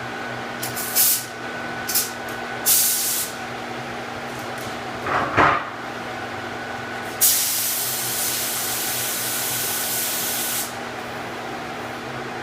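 Compressed-air paint spray gun spraying epoxy primer: three short trigger bursts of hiss, then one steady spray pass lasting about three and a half seconds. A short clatter about five seconds in, with a steady machine hum underneath throughout.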